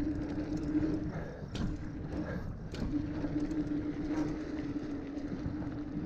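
Hardtail mountain bike being ridden, heard from a chest-mounted action camera: a steady hum over a rumble, with scattered rattles and knocks from the bike over the ground.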